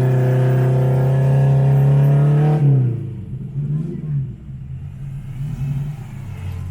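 Off-road 4x4's engine held at high, steady revs, then the throttle is let off about two and a half seconds in, and it drops to a lower, uneven running with small rises and falls in pitch.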